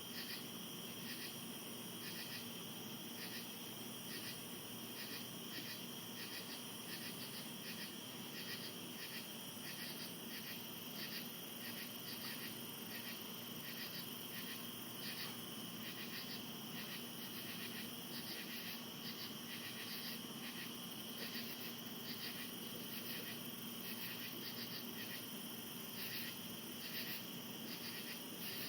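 Night chorus of insects, chiefly crickets: a steady high trill under a regular pulsing call that repeats a little faster than once a second, with a faint low steady hum beneath.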